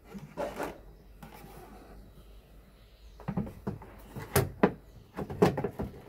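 Peugeot 307 plastic rear light unit knocking and scraping against the car's bodywork as it is pressed into place. Light rubbing at first, then a quick run of sharp plastic knocks and clicks in the second half.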